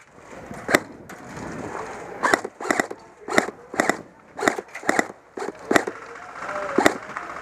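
Airsoft rifle firing single shots: about a dozen sharp pops at uneven intervals, some in quick pairs.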